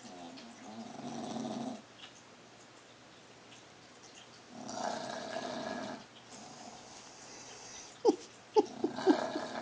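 English bulldog snoring: three long, rasping snores about four seconds apart. Just before the last snore comes a quick run of short, sharp squeaks, the loudest sounds here.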